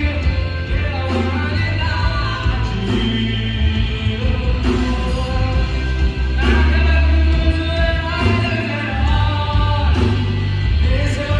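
Music with singing over a heavy bass line.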